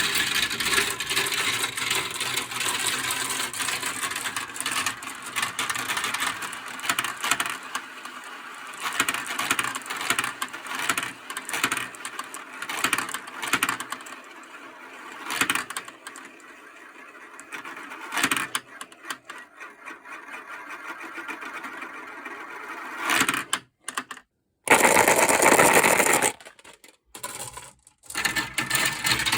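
Marbles rolling and clattering down a toy marble-run track. A dense rattle of many marbles thins to scattered clicks as fewer remain. Near the end a loud rush of rolling is broken by two brief silences.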